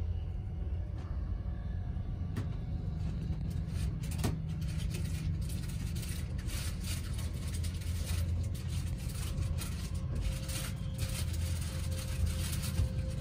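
Steady low rumble of vehicle noise, with scattered light clicks and knocks on top.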